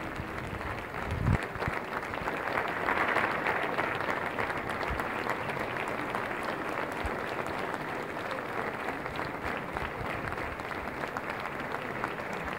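Theatre audience applauding a curtain call, a dense patter of many hands that swells about three seconds in and then holds steady. A single thump about a second in stands out above the clapping.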